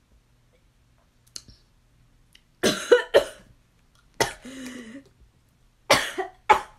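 A woman coughing about five times in quick bursts, one trailing off in a voiced rasp, after a sip of fizzy kombucha went down the wrong way.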